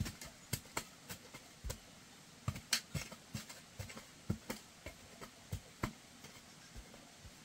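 A run of irregular sharp knocks and clicks, two to four a second, uneven in strength, like hard objects being handled or tapped.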